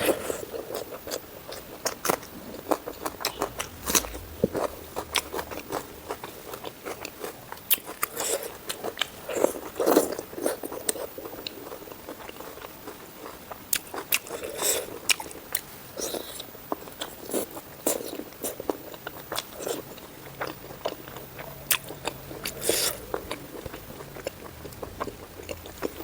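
Close-miked eating: a person biting and chewing, with many sharp, crackly crunches.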